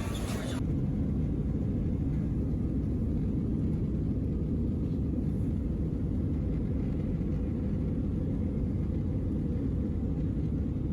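Steady, muffled low rumble of a moving vehicle heard from inside its cabin.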